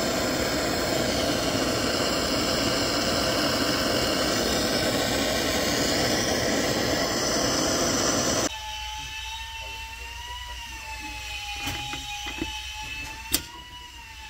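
Handheld gas torch burning with a loud, steady hiss as it heats the aluminium engine case. About eight seconds in the hiss stops abruptly, leaving a quieter wavering whistle-like tone and a few sharp clicks.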